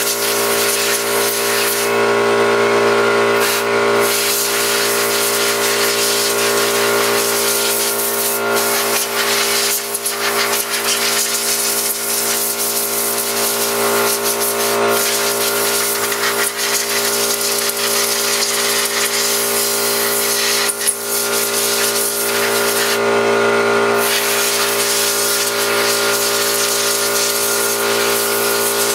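Hissing spray from a hand-held nozzle on a hose, cleaning dirt and mud off a 1/5-scale RC car, over the steady hum of a motor. The spray stops briefly twice, once a couple of seconds in and again near the end, while the hum runs on.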